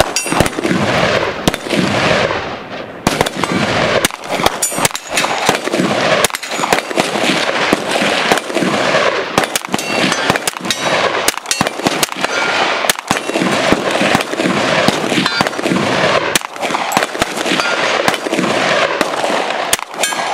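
KRISS Vector Super V CRB carbine firing subsonic .45 ACP rounds in a long string of rapid semi-automatic shots, several a second, with a few short pauses.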